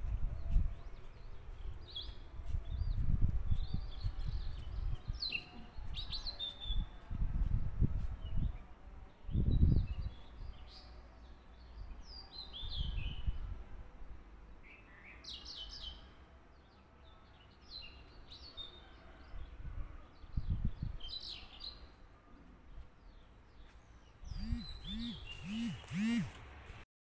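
Small birds chirping and twittering in the background, short repeated chirps throughout, over low bumps and rustles of paper and stems being handled on a table. Near the end, four quick snips of scissors cutting a paper strip.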